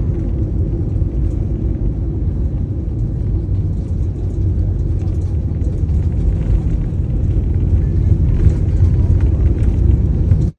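Airliner rolling along the runway after touchdown, heard from inside the passenger cabin: a loud, steady low rumble that grows slightly louder in the second half.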